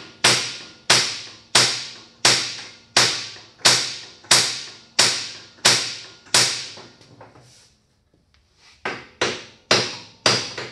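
Hammer blows ringing off a steel boss on the buggy's front suspension: ten evenly spaced strikes about two-thirds of a second apart, a short pause, then four quicker ones near the end. The boss is being struck to shock a stuck tapered shaft loose from it.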